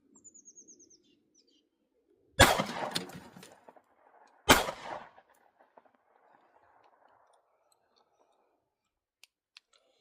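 Two 9mm pistol shots about two seconds apart, each ringing out briefly after the crack. A bird chirps a few times just before the first shot.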